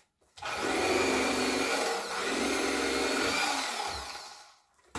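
Electric fillet knife running as it cuts through a yellow bass. It starts about a third of a second in, dips briefly around two seconds in, and fades out near the end, its whine wavering slightly as the blades meet the fish.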